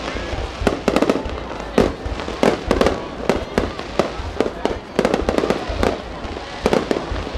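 Aerial fireworks going off in a dense barrage: many sharp bangs and crackles in quick, irregular succession over a low rumble.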